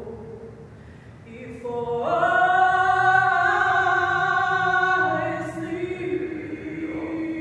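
Choir singing held chords: soft at first, it swells loudly about two seconds in, holds for about three seconds, then eases onto a lower sustained chord.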